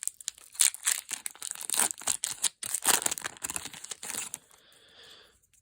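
Foil wrapper of a Pokémon trading-card booster pack crinkling and tearing as it is opened, in dense irregular crackles that fade out about four and a half seconds in.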